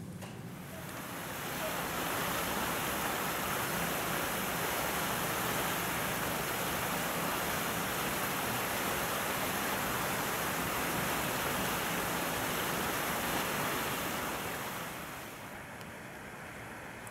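A steady rushing noise, like wind or rushing water, that swells up about a second in, holds, and fades away near the end.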